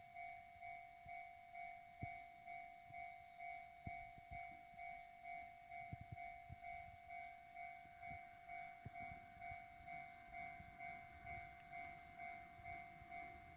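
Japanese railway level-crossing warning bell ringing steadily at about two strikes a second, the signal that a train is coming. A faint train rumble builds in the last few seconds.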